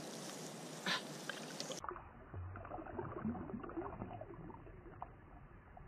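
Water sloshing and splashing around a wader's legs as a big wels catfish is released and kicks away. It turns muffled about two seconds in, and a faint tick comes about a second in.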